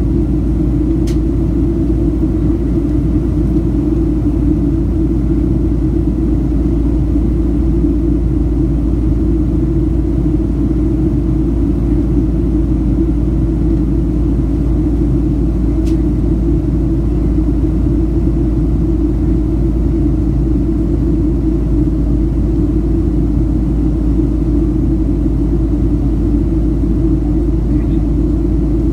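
Steady cabin noise inside a Southwest Airlines Boeing 737 in flight, heard from a window seat over the wing: the constant low drone of the jet engines and rushing air. Two faint clicks come about a second in and again about halfway through.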